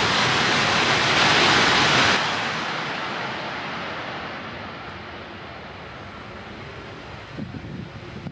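An E5/E6 Hayabusa–Komachi Shinkansen rushing through the station at high speed. The noise is loudest around two seconds in as the last cars go by, then drops off sharply and fades away. Near the end, low buffeting of wind on the microphone.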